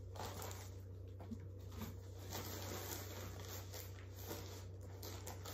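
Faint, irregular rustling of a plastic mailer bag and swimsuit fabric being handled, over a steady low hum.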